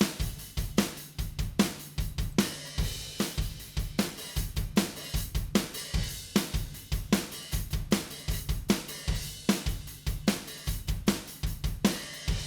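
Playback of a recorded drum kit playing a steady groove of kick, snare, hi-hat and cymbals. The snare is reinforced by Slate Trigger replacement samples blended with the original bottom snare mic. The playback stops right at the end, leaving a short ring-out.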